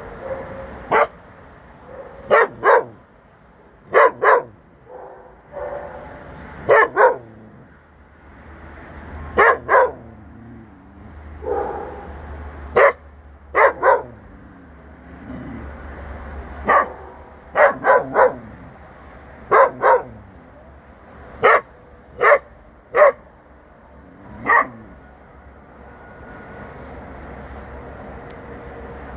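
Shepherd dogs barking while playing: sharp barks, often two or three in quick succession, repeated every second or two, stopping about 25 seconds in.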